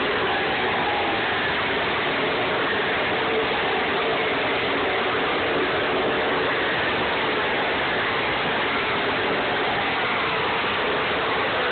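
NASCAR stock car V8 engines running on the track, heard as a continuous, even wash of engine noise with faint pitch glides as cars pass.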